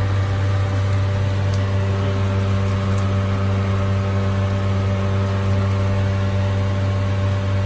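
Steady low machine hum of commercial kitchen equipment, with a few faint scrapes of a metal spatula in a wok as the fried rice is tossed.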